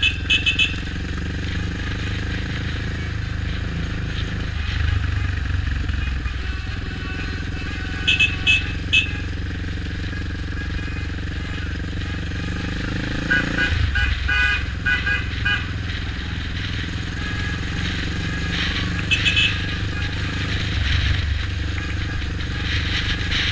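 Quad bike engine running steadily at cruising speed. Its revs rise and then drop back about two-thirds of the way through. Several times there are clusters of short, sharp high pips.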